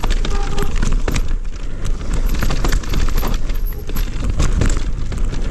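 Electric mountain bike rolling fast over a dirt singletrack, with tyres on soil and a steady clatter of small knocks and rattles from the bike over roots and bumps. A deep wind rumble on the camera microphone runs underneath.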